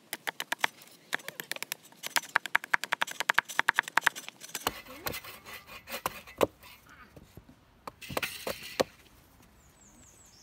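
A rapid run of sharp clicks and knocks, several a second, growing denser for the first few seconds, then a few scattered louder knocks.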